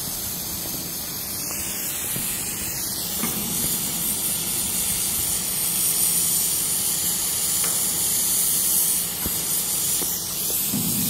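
Oxy-fuel cutting torch blowing a steady, even hiss as its flame and oxygen jet cut a bevel through steel plate.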